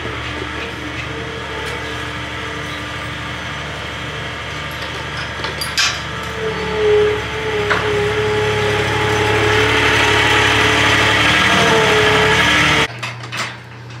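Skid steer engine running and growing louder as it comes closer, with a couple of sharp metal clanks as a steel barn gate is swung open. The engine sound cuts off abruptly about a second before the end.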